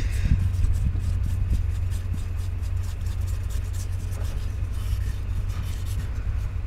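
Truck engine running steadily with a low rumble, used to charge a dead riding-mower battery.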